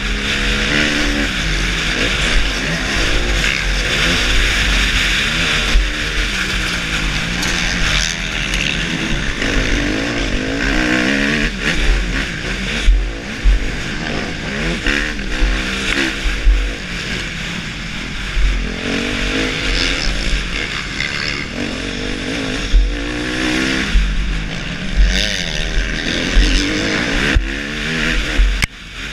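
Suzuki motocross bike's engine revving hard, its pitch rising and falling again and again as the throttle opens and shuts, heard from the rider's helmet camera with wind buffeting the microphone.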